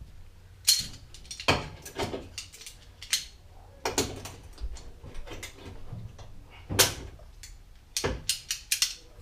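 Hand tools clicking and clanking on car fasteners and parts: a dozen or so sharp, irregular metallic knocks.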